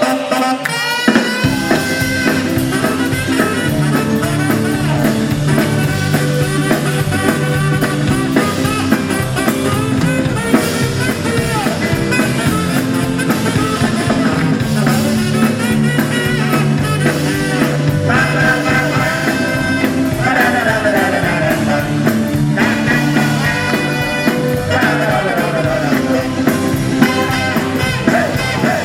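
Rock and roll band playing an instrumental break live, with electric guitar leading a melody over a steady bass and drums.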